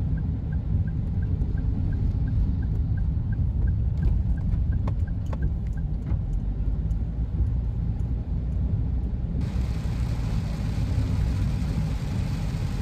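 Inside a car driving on a rain-wet road: a steady low road rumble with tyre hiss. For the first few seconds a turn signal ticks about three times a second, and a few sharp clicks follow. From about nine and a half seconds a louder hiss joins in.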